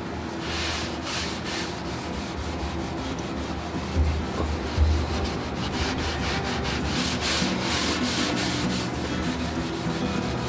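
A rag rubbing back and forth on an oak shelf, working in wax polish, in a run of hissing strokes that come faster in the second half. Two dull knocks about four and five seconds in.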